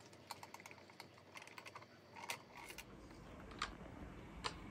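Faint light clicking and tapping of a rifle cleaning rod working through a bore guide as a patch is pushed down the barrel: a run of quick small clicks, then two sharper clicks near the end.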